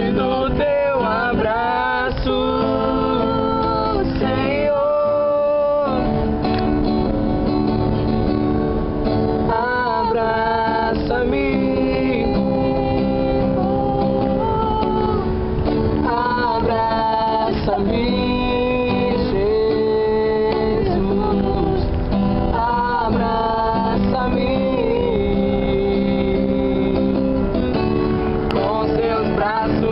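A woman singing a worship song live to a strummed acoustic guitar.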